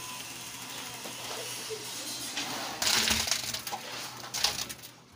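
Concrete mix tipped out of a bucket into a column footing pit. A loud rushing slide comes about three seconds in, and a shorter one about a second and a half later.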